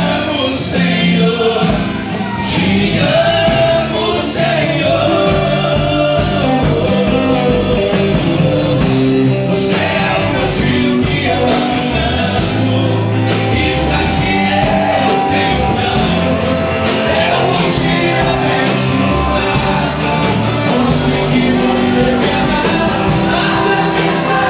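Live gospel worship band playing an upbeat song with a steady drum beat, with singing over it.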